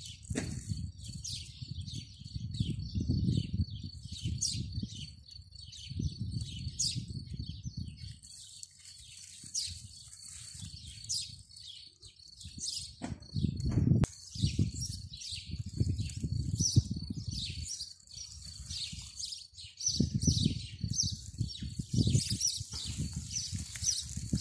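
Small songbirds chirping and twittering continuously, with a thin steady high tone under them for the first half. Irregular gusts of low rumble, wind buffeting the microphone, come and go and are the loudest sound.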